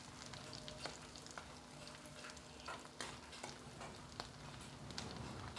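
Cut potatoes and onions sizzling in hot mustard oil in a kadhai as they are stirred, with a steady crackle and a few sharp knocks of the stirring against the pan.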